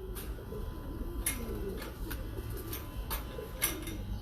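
Pigeons cooing, low wavering calls overlapping one another, with a few sharp clicks and knocks scattered through.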